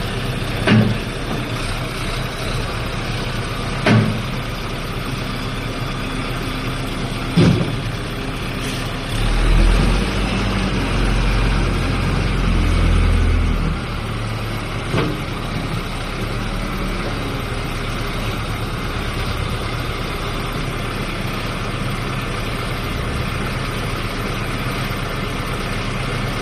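Backhoe loader's diesel engine running steadily, with a few sharp knocks and, about a third of the way in, several seconds where the engine note grows deeper and louder.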